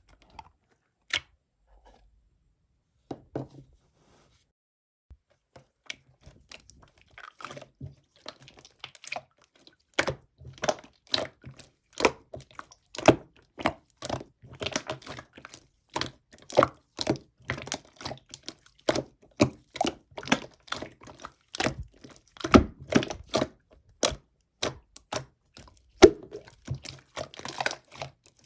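Slime being squeezed and poked by hand, making sharp clicking and popping sounds. A few scattered clicks at first, then a dense, irregular run of clicks from about ten seconds in.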